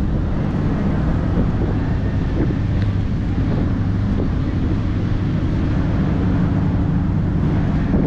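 Wind buffeting the microphone in a dense, choppy low rumble, over a steady low hum.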